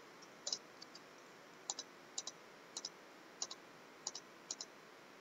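Computer mouse button clicking about seven times, each click a quick press-and-release pair, spaced roughly half a second to a second apart.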